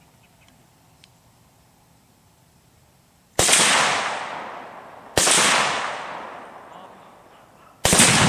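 Three gunshots fired at a Tannerite target, about two seconds apart, each followed by a long fading echo; the third, near the end, carries more low rumble.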